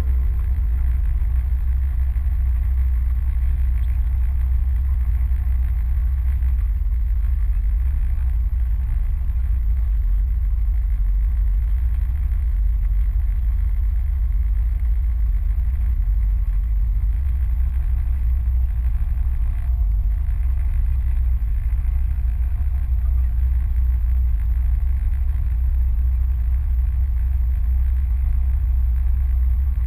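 Inboard engine of a small wooden Norwegian motorboat (snekke) running steadily under way, a low even drone that does not change.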